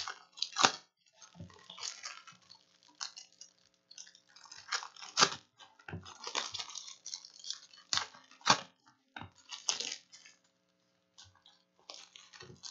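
Foil trading-card pack wrappers crinkling and tearing in the hands, in irregular bursts with sharp crackles.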